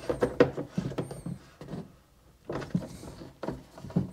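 Plastic mud flap being pushed onto a KTM 250 SX's plastic air filter box, drawing its two halves together: a run of irregular plastic knocks and clicks, with a short pause about two seconds in.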